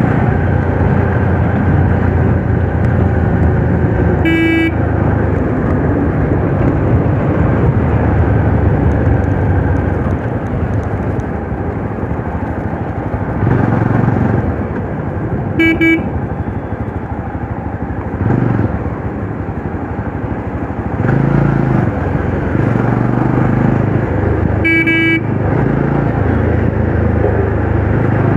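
Classic Legends Yezdi Roadster's single-cylinder engine running under way with steady road and wind noise, the engine note easing off and picking up again a few times. A horn gives three short beeps of the same pitch, one near the start, one midway and one near the end.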